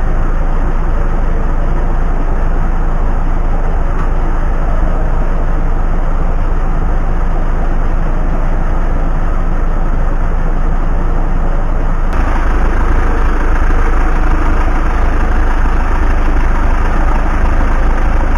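Iveco Daily truck's diesel engine idling steadily, heard from under the truck; it gets louder about twelve seconds in.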